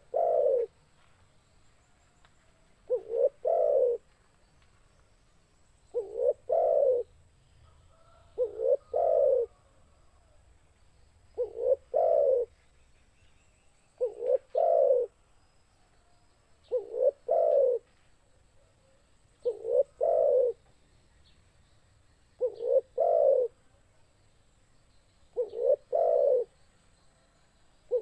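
Spotted dove cooing: the same phrase, a short coo followed by a longer two-part coo, repeated about every three seconds, ten times over.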